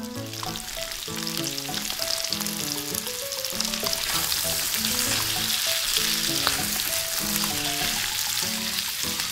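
Hot oil sizzling as small breaded mozzarella donuts deep-fry in a miniature wok; the sizzle builds over the first few seconds and then holds steady.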